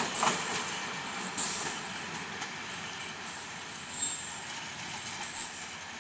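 Passenger train's coaches rolling away on the rails, the wheel noise slowly fading. There are a couple of sharp clacks at the start as the last wheels cross a rail joint, and a brief high wheel squeal about four seconds in.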